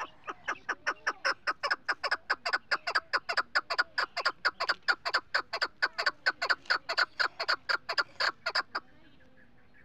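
Male chukar partridge calling: a rapid, even run of short notes, about four a second, that stops about nine seconds in.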